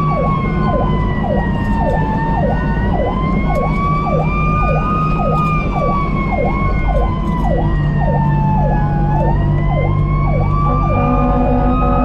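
Fire engine sirens running together while under way: a slow wail rising and falling every few seconds over a fast yelp of about two to three sweeps a second, with the apparatus's diesel engine droning underneath. Near the end, a set of steady tones comes in.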